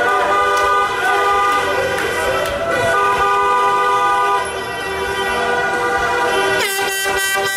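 Several car horns blaring at once in long held, overlapping notes: the celebratory honking of a car parade. Near the end one horn glides in pitch and then flutters.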